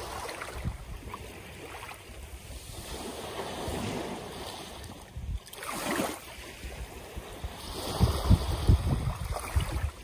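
Small sea waves lapping and washing up a sandy beach, with a fuller wash of a wave running up the sand about six seconds in. Wind rumbles on the microphone in the last two seconds.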